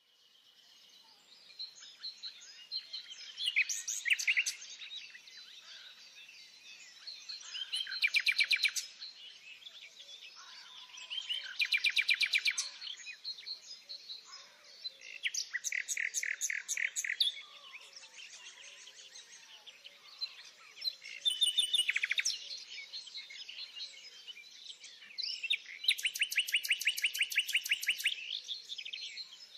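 Songbirds singing: short loud phrases of rapid trilled notes about every four seconds, over a constant faint twittering of other birds.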